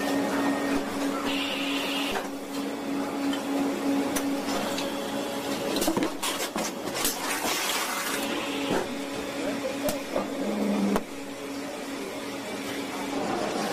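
Automated factory line machinery running: a steady hum with a short hiss, then a cluster of clicks and knocks in the middle, and the sound drops somewhat about eleven seconds in.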